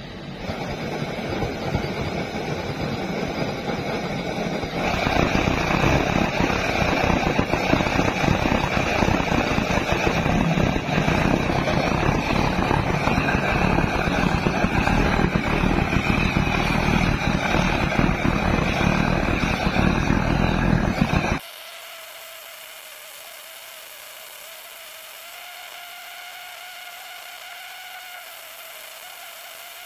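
Homemade waste-oil burner, its flame driven by a steam venturi instead of a blower, running with a steady rushing noise that grows louder about five seconds in. About 21 seconds in it cuts abruptly to a quieter, steady high whine: the burner's sound sped up sixteen-fold.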